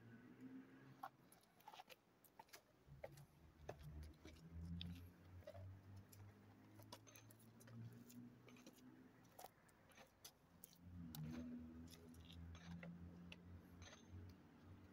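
Near silence, with faint scattered clicks and a low hum.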